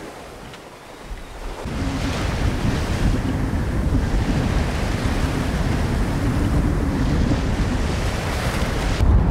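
Wind buffeting the microphone and waves rushing past a sailing yacht under way at sea. Fairly quiet for the first second and a half, then louder and steady.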